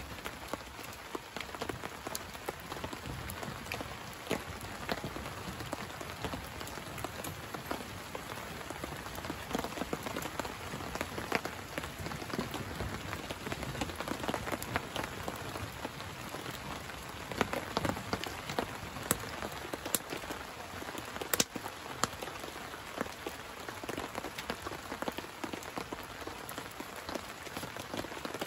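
Steady rain falling, with many irregular drops pattering on a tarp overhead and on the dry leaf litter, and a few louder single drips.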